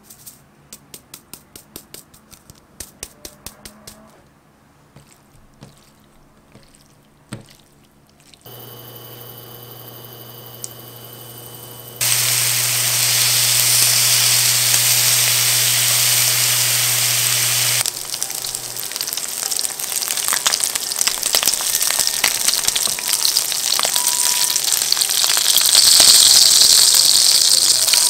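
Chicken skins frying in their own fat in a nonstick pan on an induction hob, crisping into chicken-skin crackers: a loud steady sizzle starts about twelve seconds in, then turns to dense crackling and popping, louder near the end as the skins brown. Before that come a few seconds of light rhythmic clicks, then the hob's steady electrical hum as it heats.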